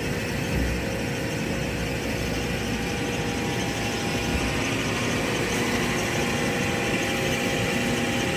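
Hyd-Mech H16A horizontal band saw running steadily, its hydraulic unit and drive motor humming as the hydraulic shuttle vise travels back to feed the next piece of stock.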